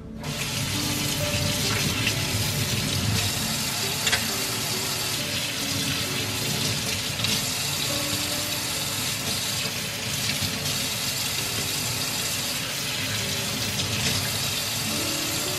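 Kitchen tap running steadily into a sink, the stream splashing onto vegetables being rinsed in a stainless steel mesh colander. A couple of brief knocks come through, about 4 and 7 seconds in.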